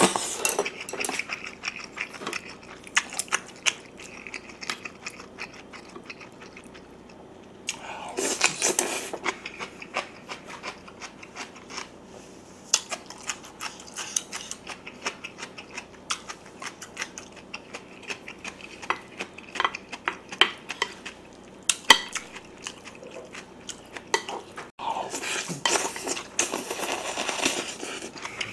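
A wooden spoon clicking and scraping against a ceramic plate of rice, with chewing in between.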